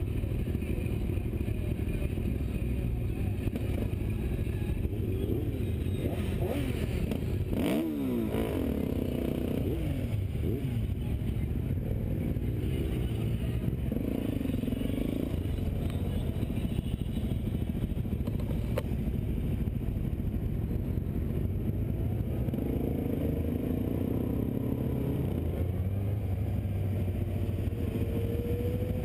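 Motorcycle engines running and revving up and down as a Suzuki DR-Z400 supermoto rides off with a group of sport bikes, its engine pitch rising and falling several times, with a rising rev near the end. A sharp knock about eight seconds in.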